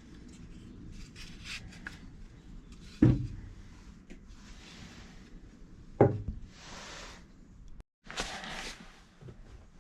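Two sharp knocks about three seconds apart, with short scraping and rubbing sounds between them and a longer scrape near the end.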